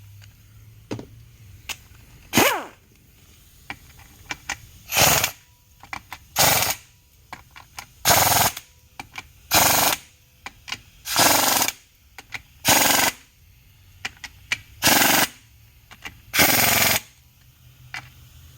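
Ratchet wrench clicking in short rapid bursts, about nine strokes, with brief pauses between them, as the bolts holding the transmission valve body to the case are tightened down.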